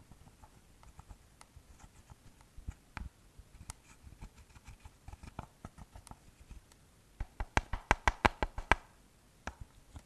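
Slime being kneaded and squished by hand, with sticky clicking and popping: scattered soft clicks, then a quick run of louder pops about three quarters of the way through.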